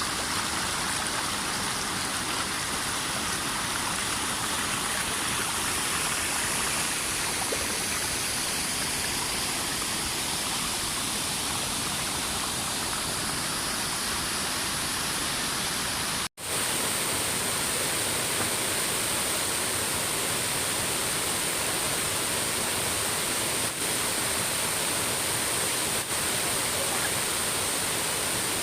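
Steady rush of water falling through the reservoir dam's overflow and waterfall, an even hiss with no change in level, cut off for an instant just past the middle.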